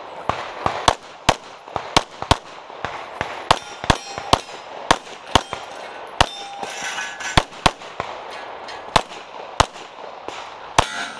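A SIG P320-pattern pistol fitted with a Grey Guns Lockwood slide kit, fired in a rapid competition string of about twenty shots at an uneven pace, in quick pairs with short pauses as the shooter moves between targets. Metallic clangs of hits on steel targets come through between the shots.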